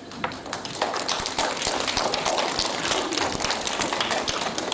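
Audience applauding, a dense patter of clapping that swells about a second in and carries on.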